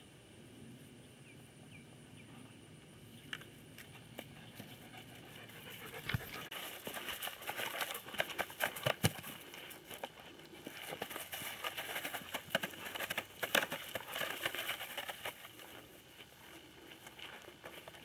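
Crackling and rustling of dry grass and wood with many sharp snaps as a rough collie mouths and chews a stick. It starts about six seconds in and fades near the end.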